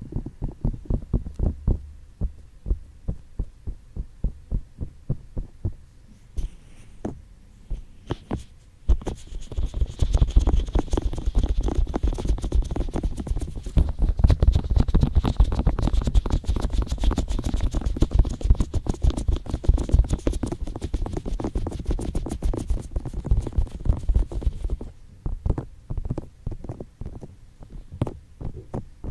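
ASMR ear tapping and ear touching: fingertips tapping close to the microphone as soft, dull thuds, about two to three a second. From about nine seconds in, the tapping turns fast and dense with a rubbing hiss, then eases back to slower separate taps near the end.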